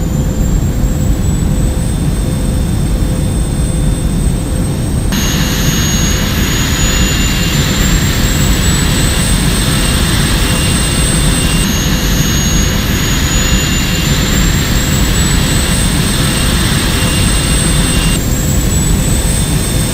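Jet airliner engines running: a steady low rumble with a high turbine whine that slowly rises in pitch, the whine and hiss jumping abruptly three times.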